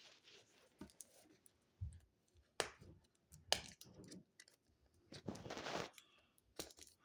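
Paper pages of a book being handled and flipped: a few sharp clicks and a longer rustle of paper about five seconds in.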